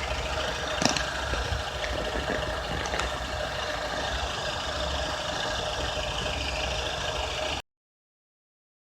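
Honda K24Z3 2.4-litre four-cylinder engine running steadily with a rattling noise, with a sharp click about a second in. The sound cuts off abruptly near the end.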